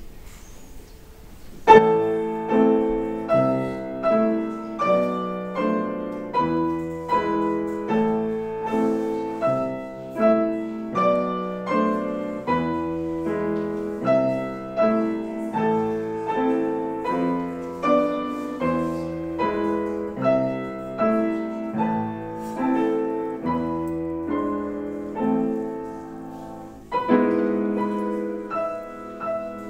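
Bohemia grand piano being played: after a quiet opening second or two, a piece starts with a loud chord and runs on at an even pace, a new note or chord about every half second, each ringing and fading. Near the end the playing softens, then comes back loud with a strong chord.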